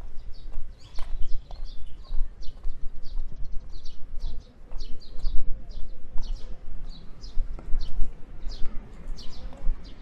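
Footsteps on a paved path at walking pace, about two to three steps a second, with a steady low rumble underneath.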